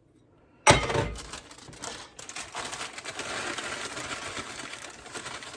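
A sharp knock, then steady crinkling and rustling of the plastic sleeve of a vanilla wafer cookie package being handled.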